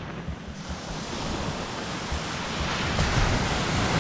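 Sea surf washing on the beach, with wind buffeting the microphone. The surf noise swells from about half a second in and is loudest near the end.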